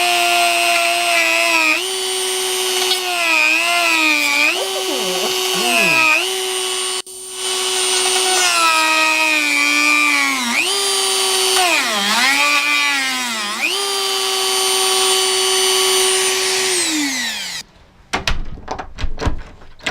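Dremel rotary tool with a small sanding drum bit whining at high speed, its pitch sagging and recovering again and again as it is pressed into the door jamb's latch opening to grind it lower. It cuts out briefly about seven seconds in, then near the end is switched off and winds down, followed by a few knocks.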